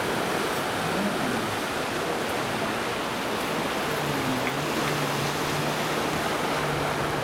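Steady rush of surf and wind, with the faint, even hum of a stand-up jet ski's engine coming in about halfway through.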